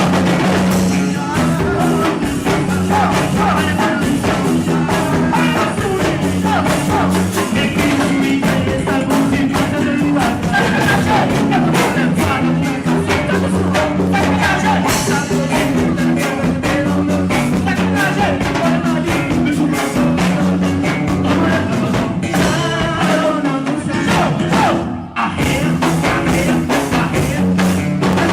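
Loud music with a sung vocal over a steady beat, with a brief break about 25 seconds in.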